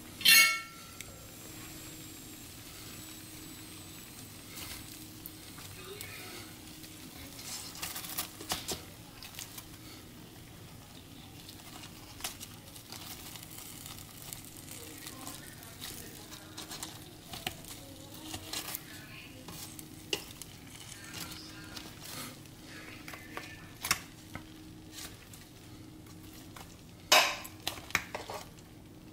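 Hot air-fried chicken pieces sizzling in a Power XL air fryer's perforated basket while a fork scrapes and taps against the basket as the pieces are turned. A sharp loud clack comes just after the start and another near the end.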